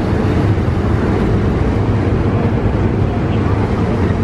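Loud, steady wind buffeting the microphone on the deck of a moving passenger ferry, over the ferry's low engine rumble and rushing water from its wake.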